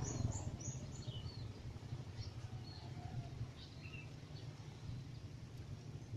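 Faint, scattered chirps of small birds over a steady low background rumble.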